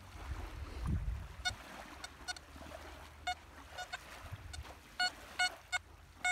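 XP ORX metal detector with an elliptical HF coil giving short, repeated beeps of one pitch as the coil is swept over the sand, loudest near the end. A brief low rumble comes about a second in.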